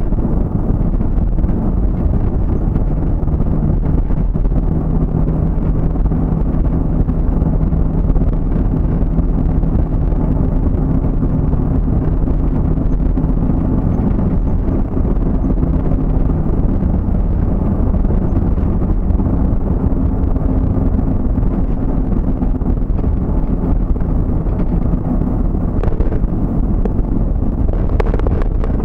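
Steady engine drone and road noise from inside a moving vehicle's cabin, with a low hum holding an even pitch.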